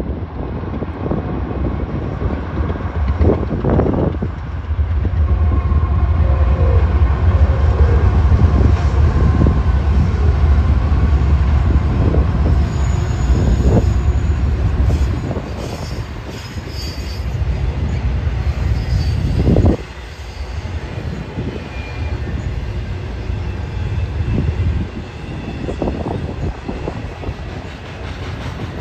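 Freight train passing: a heavy low rumble that is strongest through the first half, then a lighter rolling sound from the cars, with wheels clacking over rail joints and brief high wheel squeals.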